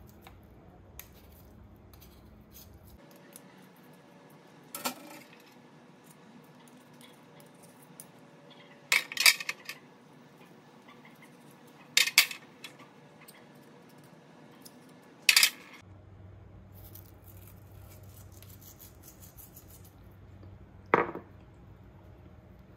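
Metal skewers and a fork clinking against a wire cooling rack and sheet pan as grilled chicken is slid off the skewers: a few sharp metallic clinks several seconds apart, the loudest a quick double clink about nine seconds in. Near the end comes a single duller knock.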